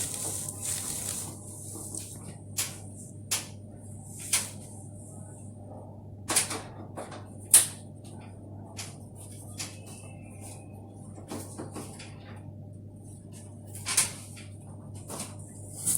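Scattered sharp clicks and knocks, about a dozen, the loudest about halfway through, from an air conditioner's casing being handled, over a steady low hum.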